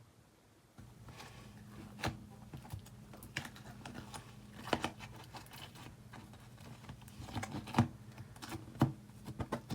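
Slime being squished and stretched by hand, giving irregular sticky clicks and pops, over a faint steady hum.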